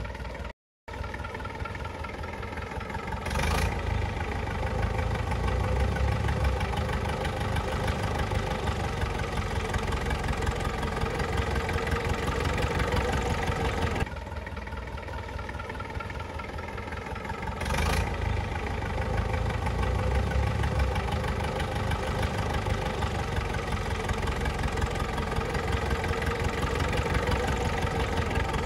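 Tractor diesel engine running steadily. It is louder and heavier from about 3 seconds in, drops suddenly at about 14 seconds, and comes back up at about 18 seconds, with a brief dropout just after the start.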